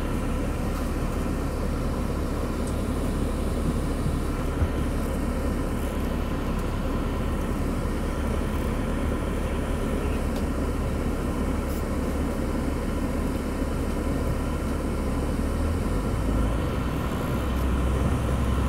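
MaxxForce DT inline-six diesel of a 2009 International 3300 school bus running, heard from inside the cabin. A steady low drone, growing louder near the end.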